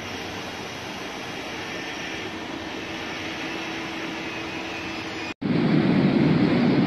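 Freight train of tank wagons rolling past, a steady rumble with a faint hum. About five seconds in it cuts off abruptly and a louder, deeper rumble takes over.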